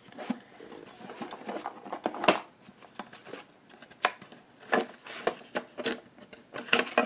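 Rummaging through a watercolor box: irregular clicks, knocks and rustling of handled objects and paper as a cheat sheet is searched for and pulled out, with the loudest knock about two seconds in.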